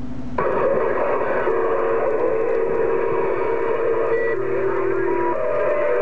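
HR2510 ten-metre transceiver receiving on 27.085 MHz: a hiss of band static comes up suddenly about half a second in. Several steady whistling tones sit over it and change pitch now and then, heterodyne whistles from distant stations on the channel.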